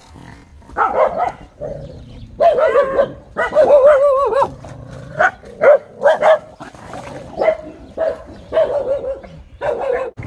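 A dog barking over and over in short calls, some of them drawn out into longer, wavering yelps.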